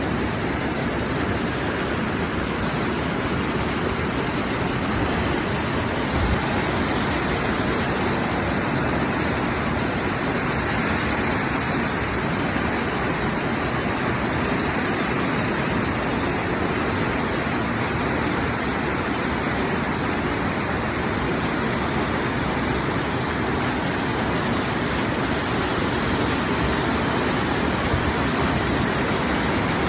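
Heavy storm rain pouring steadily, with wind, as an even, unbroken hiss.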